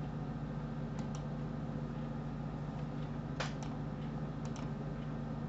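Computer mouse clicks, a few quick pairs with the loudest about three and a half seconds in, over a steady low hum from the computer.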